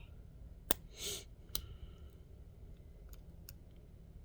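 Lock pick clicking and scraping in a padlock's keyway as the lock is picked: a sharp click a little under a second in, a short scrape, another click, then faint ticks.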